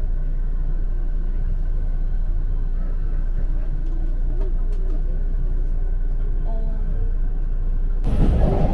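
Steady low rumble of a JR 185 series electric train's motors and running gear, heard inside the passenger car as the train pulls out of the station. About eight seconds in the noise turns suddenly louder and rougher.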